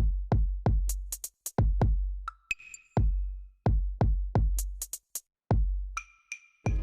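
Electronic music built on a drum-machine beat: deep kick drums with long booming tails, sharp high hits and short bell-like tones. Near the end a fuller layer of held synth notes comes in.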